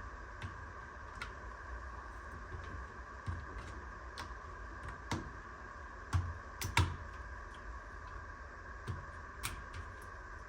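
Scattered small plastic clicks and knocks, with the loudest pair a little past the middle, from handling the new washer door lock and pushing its wire connectors on, over a faint steady hum.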